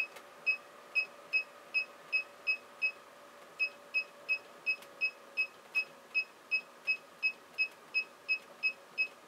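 Digital hot plate's control panel beeping with each step as its set temperature is raised: a run of short, identical high beeps about three a second, with a brief pause near three seconds in.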